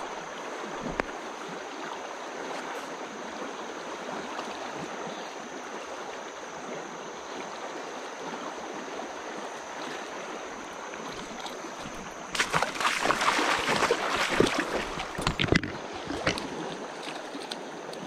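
Steady rush of flowing river water. About twelve seconds in there is a louder stretch of irregular splashing and knocking that lasts about three seconds.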